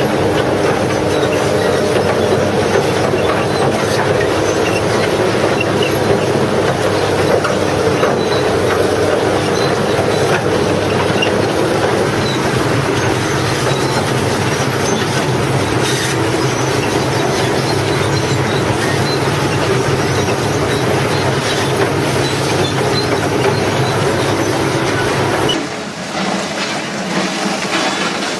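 Heavy machinery running with a loud, steady mechanical noise. About 25 seconds in, the sound changes abruptly and becomes quieter.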